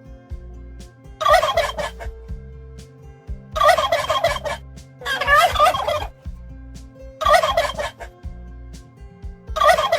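Turkey gobbling: four gobbles about a second long, one every couple of seconds, with a fifth starting right at the end, over soft background music.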